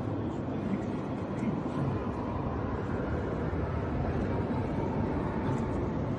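Steady low rumble and hiss of a large mosque hall's room noise, heard through the reciter's open microphone with no voice.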